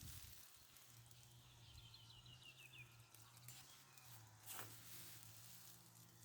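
Faint bird call: a quick run of about nine short high notes falling in pitch, about two seconds in, over a low steady hum.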